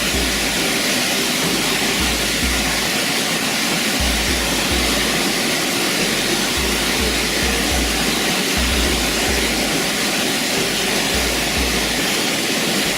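Waterfall rushing steadily, with music carrying a deep, pulsing bass line underneath.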